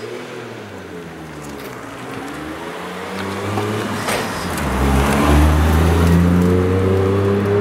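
Toyota Chaser sedan's engine running as the car drives across a parking lot and comes close past. Its note dips in the first two seconds, then grows much louder and deeper as the car nears, loudest about five to seven seconds in.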